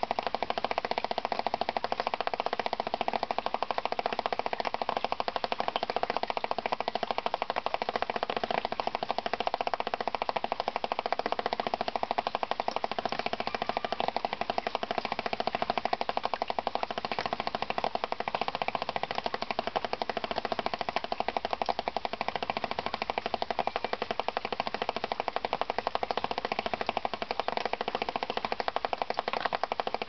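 Water dripping rapidly onto a large Acanthus mollis leaf in the rain: a fast, steady pitter-patter of drops drumming on the leaf with a drummy, slightly sitar-like ring.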